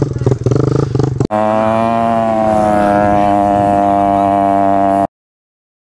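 Kawasaki KLX110 pit bike's single-cylinder four-stroke engine running under way. About a second in the sound jumps to a steady, held engine note, then cuts off suddenly to silence near the end.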